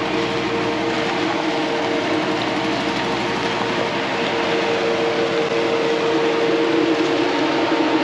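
Hummer H3 SUV crawling up a rough dirt trail at low speed, its engine running with a steady drone. It grows a little louder about six seconds in as it pulls up close.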